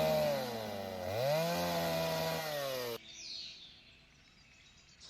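Chainsaw running at high revs, its pitch sagging briefly as it bogs down under load and then climbing back up. It stops abruptly about three seconds in, leaving only faint outdoor background.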